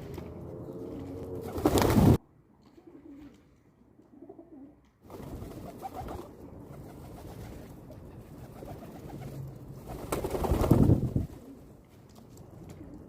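Pigeons cooing, with low coos at the start and near the end. Two loud, noisy bursts cut in, about 2 s and 10 s in.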